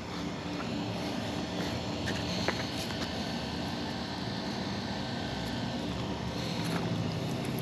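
Steady rush of flowing river water, with a couple of faint clicks about two and a half and three seconds in.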